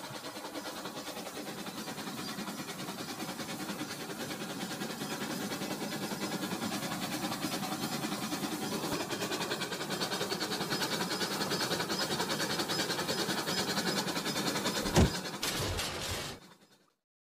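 Toy train running on plastic sectional track, its wheels clicking and rattling rapidly over the track joints and getting louder as it comes nearer. A single sharp knock about fifteen seconds in, then the sound cuts off suddenly.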